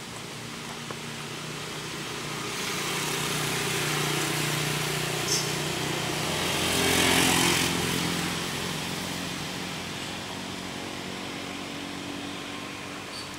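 A motor vehicle passing by: its engine sound swells over a few seconds, is loudest about seven seconds in, then fades away.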